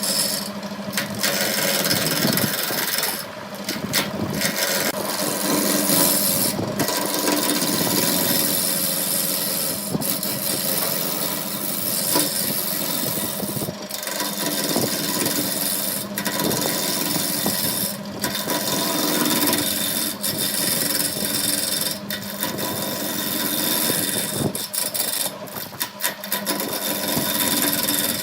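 Wood lathe running with a steady motor hum while the spinning wood is scraped and cut, a continuous rasping noise that dips briefly now and then.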